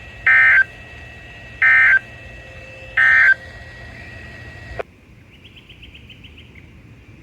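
Three short bursts of NOAA Weather Radio SAME digital data tones, each about a third of a second long and a little over a second apart. They are the end-of-message code closing an EAS severe thunderstorm warning. A little under five seconds in the radio signal cuts off abruptly, leaving fainter hiss.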